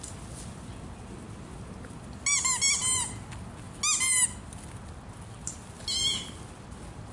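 Squeaky toy ball squeezed in a dog's mouth: three quick bursts of sharp, high squeaks, several squeaks per burst, about two seconds in, around four seconds in, and near the end.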